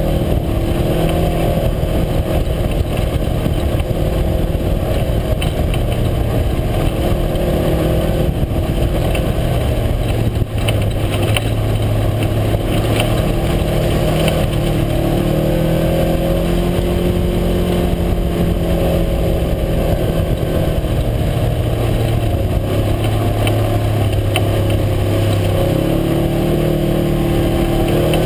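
UTV engine running under changing throttle, its pitch rising and falling slowly, with a clear drop near the end.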